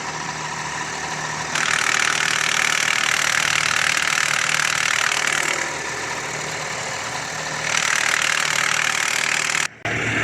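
Car engine idling while the clutch pedal is pressed twice: each press brings in a loud harsh grinding noise, about four seconds the first time and two the second, which drops back to the plain idle when the pedal is released. The noise is traced to a worn dual-mass flywheel with abnormal play.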